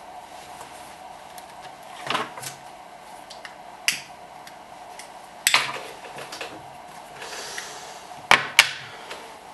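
Cigarettes being handled and lit with a lighter: scattered small clicks and scrapes over a faint steady hum, a louder click about halfway through, and two sharp clicks close together near the end.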